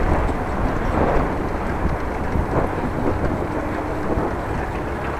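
Wind rumbling on an action camera's microphone while cycling, a steady low rumble mixed with road noise.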